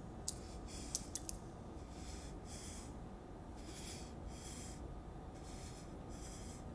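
Faint, slow breathing close to a microphone, soft paired puffs of air every second or two, with a few small clicks in the first second or so.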